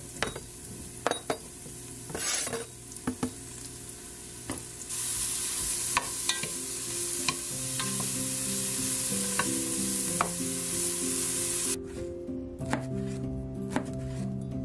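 Mushroom pieces frying in oil in a pot, sizzling as a wooden spatula stirs them, with clicks and knocks of pieces dropping and the spatula scraping. The sizzle grows louder about five seconds in and cuts off about twelve seconds in, after which a knife chops on a cutting board a few times.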